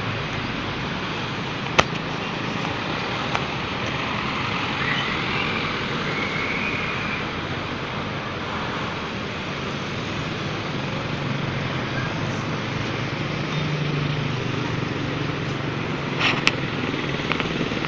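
Road traffic noise: vehicle engines running steadily in slow traffic, with a few short sharp clicks, one about two seconds in and a couple near the end.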